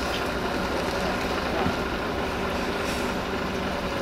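Volvo FH16 truck's diesel engine running steadily at low revs as the tractor unit pulls a loaded low-loader trailer forward at walking pace.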